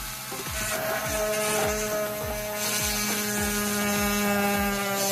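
12 V DC mini grinder (rotary tool) running with a 3 mm drill bit, drilling a hole through the material: a steady, high motor whine with several held tones.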